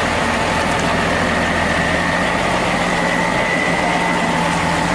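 M35A2 army truck's multifuel diesel engine running steadily at low revs, with a steady high whine over it.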